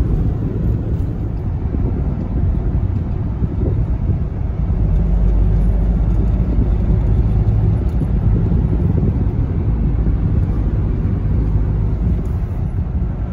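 Steady low rumble of a car's engine and tyres on the road, heard from inside the moving car's cabin, a little louder from about five seconds in.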